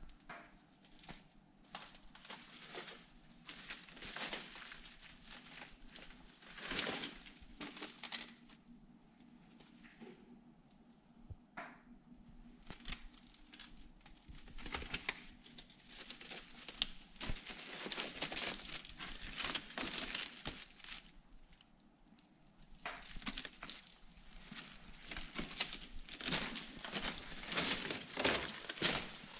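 Footsteps on loose gravel track ballast, an uneven run of crunches that grows louder near the end.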